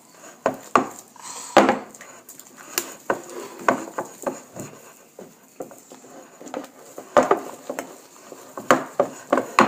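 Sticky slime being mixed in bowls: irregular wet clicks and clacks, about one or two a second.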